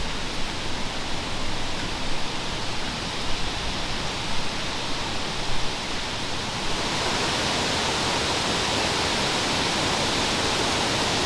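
Water cascading down a steep canyon hillside, a steady rushing hiss. About two-thirds of the way through it becomes louder and brighter, then holds steady.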